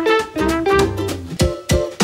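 Background music led by a plucked string instrument playing a quick run of short notes, with two low drum thumps in the second half.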